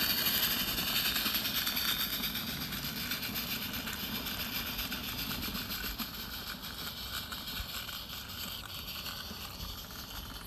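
Exhaust of a 16mm-scale live-steam Roundhouse D-class garratt with a Summerlands Chuffers enhancer closed fully for maximum chuff: a rapid chuffing from its four cylinders that fades as the engine draws away, with the wagons rolling along the track behind it.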